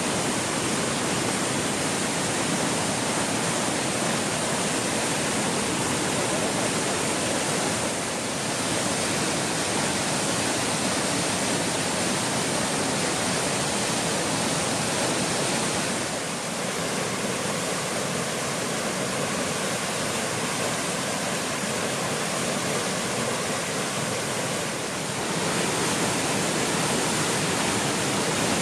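Waterfall pouring, a steady, dense rush of falling water that dips slightly in level three times.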